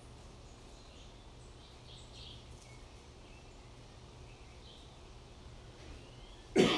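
Faint, scattered bird chirps over a low steady hum, then a sudden short loud sound near the end.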